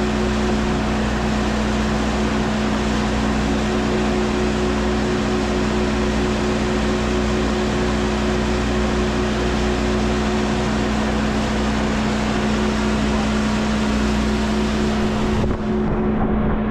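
An engine or machine running steadily, a constant hum over a broad noise.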